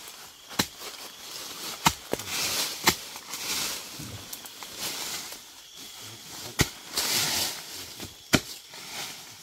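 A long-handled digging tool striking into forest soil and roots: about six sharp, irregularly spaced blows, with stretches of scraping earth in between.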